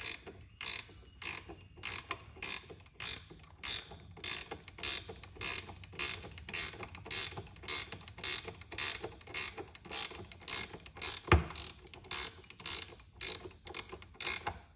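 Hand socket ratchet clicking in short bursts, about three strokes a second, as a bolt is run down tight. One sharper metal knock about eleven seconds in.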